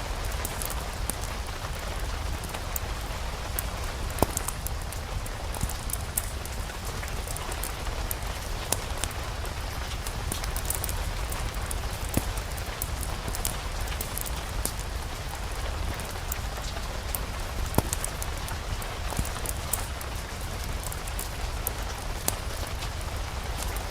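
Ambient mix of steady rain and a crackling fireplace fire: an even hiss of rain dotted with sharp crackles, over a low rumble.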